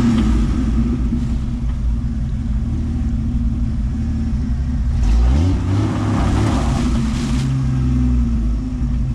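1997 Jeep Wrangler TJ's engine running under load as it tries to climb, rising in pitch as it revs about five seconds in. With only two tires on the ground and no lockers, the two wheels in the air spin without traction.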